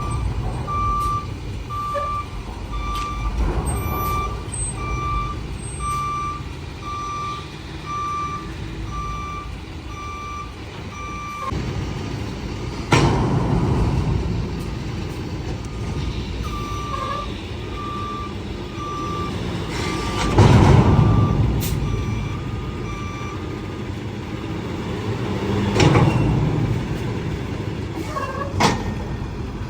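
A roll-off dumpster truck's reversing alarm beeping about once a second over the running engine. The beeping stops about eleven seconds in and comes back fainter later. Several short, loud bursts of noise stand out above it.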